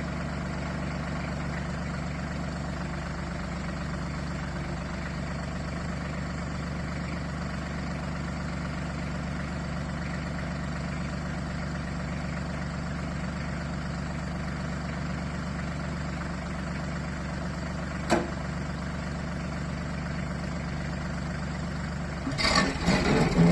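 Branson tractor's diesel engine running steadily at idle. There is one sharp click about 18 seconds in, and near the end a sudden loud, irregular clatter.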